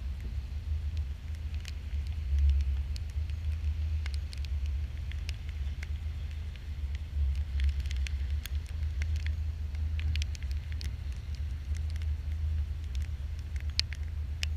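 Wind buffeting the microphone as a steady low rumble, with faint, scattered crackles and pops.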